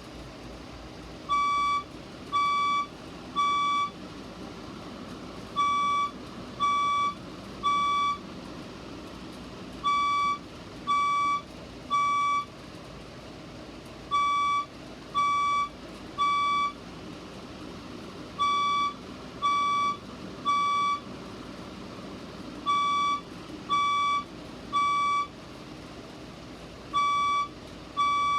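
Fire alarm speaker sounding its evacuation beep tone in the temporal-three pattern: three half-second beeps, a pause, then three more, repeating about every four seconds.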